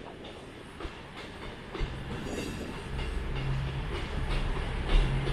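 CrossCountry Class 221 Voyager diesel multiple unit pulling out, its diesel engines setting up a steady low drone from about two seconds in that grows louder, with a few knocks of the wheels on the track.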